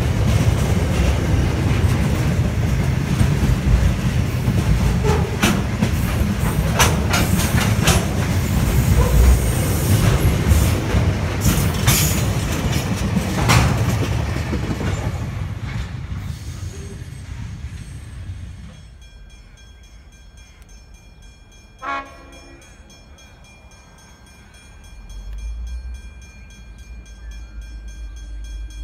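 Container freight train wagons rolling past: a steady heavy rumble with wheel clatter and sharp metallic squeals. The rumble fades out as the last wagons pass. Later comes one short toot, then the low rumble of another train building near the end.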